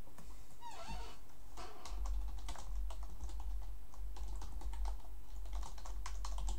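Typing on a computer keyboard: a quick run of keystrokes starting about a second and a half in.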